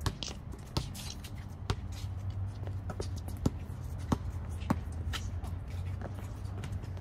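Basketball bouncing on a concrete court, a string of sharp irregular thuds as it is dribbled, with sneakers shuffling and stepping on the concrete.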